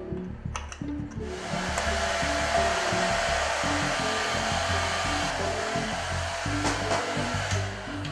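Handheld electric hair dryer switched on about a second in after a couple of clicks, then blowing steadily with a rushing of fan and air. Background music with a low bassline plays underneath.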